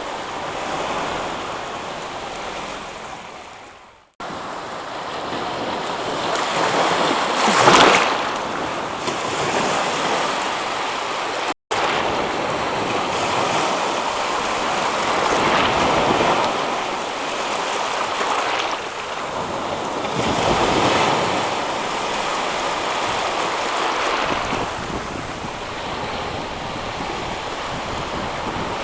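Ocean surf: waves breaking and washing in a steady roar that swells and ebbs every few seconds, the loudest break about eight seconds in. The sound fades out and cuts back in near four seconds, and drops out for an instant a few seconds later.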